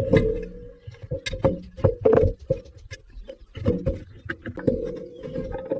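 Bearing puller being tightened on a ceiling fan's ball bearing: irregular metal clicks and short squeaks as the screw is turned. The bearing is stuck, and the puller has run out of thread, so it barely tightens.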